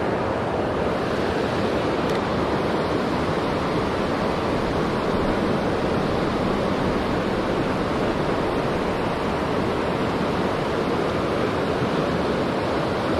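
Fast river current rushing over a rocky riffle: a steady, even rush of white water.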